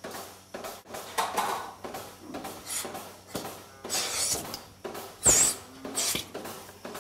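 Milking machine in a parlour, its strokes coming about twice a second, with rubbing and clattering as the milking cluster and teat cups are handled at a cow's udder. The loudest sound is a sharp hiss about five seconds in.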